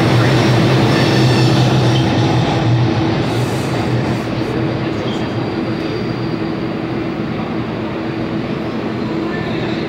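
New York subway R142A car standing at the platform, giving a steady hum and rumble with a low drone that eases off after about three seconds.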